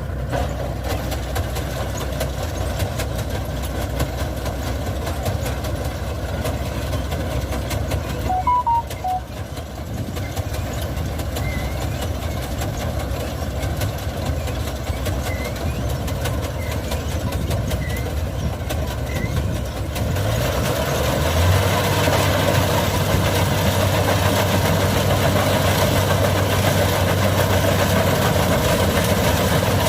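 Kubota DC-70 Plus combine harvester's diesel engine running steadily while the machine travels; about two-thirds of the way through, the engine speeds up and runs louder at a higher, steady speed.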